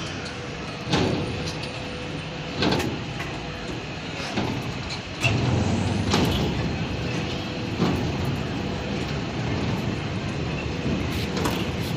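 Teacup amusement ride turning: a steady mechanical rumble with a faint hum, rising in repeated louder swells every second or two.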